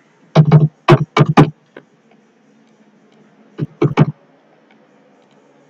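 Computer keyboard keys typed in two quick bursts, about six keystrokes and then about four: numbers being entered into a software dialog's fields.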